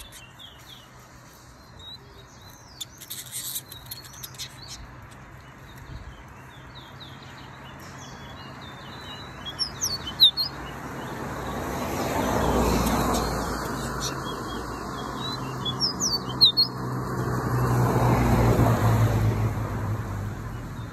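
Caged finches singing short, quick chirping phrases in a bird-singing match, with gaps between songs. Two loud swells of rushing noise, like passing vehicles, rise and fall about 12 and 18 seconds in.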